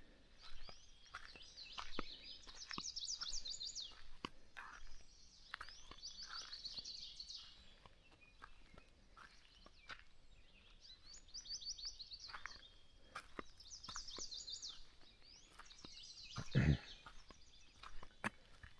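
A songbird sings a high, rapid trilled phrase about five times, a few seconds apart, over scattered small clicks and knocks. A single heavy thump comes near the end and is the loudest sound.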